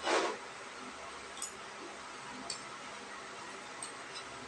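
Quiet eating sounds at a meal: a short noisy burst right at the start, then a few faint, sharp clicks of spoon and mouth spread through the rest.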